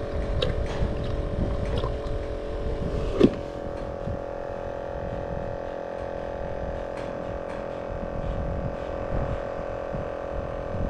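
Steady motor hum, holding one pitch over a low rumble. A few small clicks and knocks from handling a plastic bait tub come in the first seconds, the sharpest about three seconds in.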